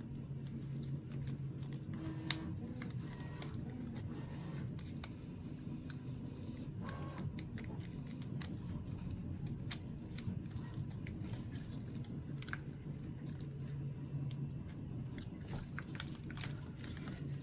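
Scattered faint clicks and taps of small plastic RC-truck parts and suspension links being handled and fitted together, with one sharper click about two seconds in, over a steady low hum.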